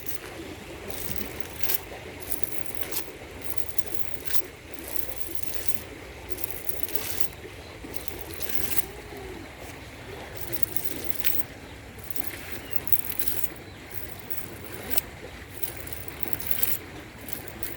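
Water trickling and splashing, with scattered light clicks and knocks at irregular intervals.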